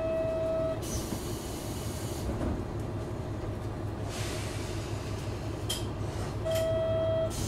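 JR Shikoku 1000 series diesel railcar idling at the platform with a steady low engine rumble, and air hissing twice for a second or so. A short electronic beep sounds at the start and again near the end.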